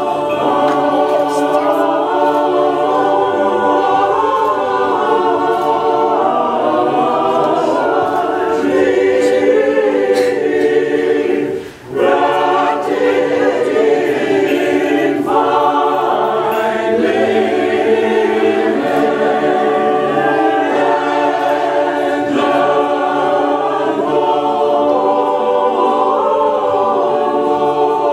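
Mixed Orthodox church choir singing unaccompanied liturgical chant, with one short pause between phrases a little before halfway.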